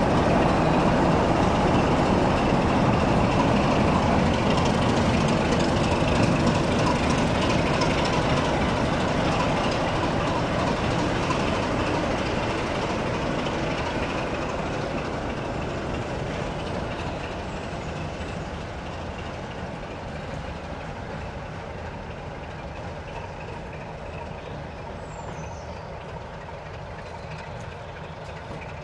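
Class 08 diesel shunter and Class 33 diesel locomotive pulling away together, their diesel engines running and fading steadily as they move off down the line.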